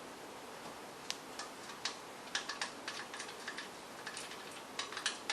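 Light, irregular metallic clicks and ticks of mounting bolts and lock washers being turned in by hand on a pressure washer pump.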